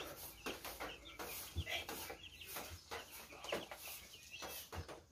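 Two-day-old broiler chicks peeping: many short, high chirps, with a few soft knocks and rustles among them.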